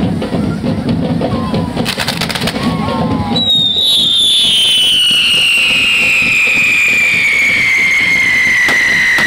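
Drumming from a devils' troupe band, then about three seconds in a firework lights with a sudden, loud, high whistle that slowly falls in pitch and keeps going.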